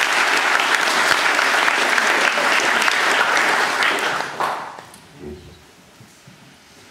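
Audience applauding, a dense patter of clapping that dies away about four and a half seconds in.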